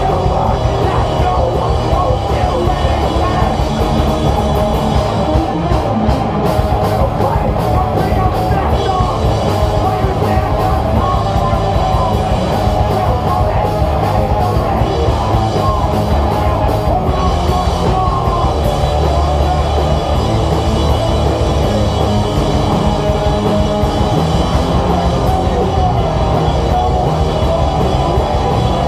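Live rock band playing, with electric guitar, a drum kit and a singer on the microphone, loud and continuous throughout.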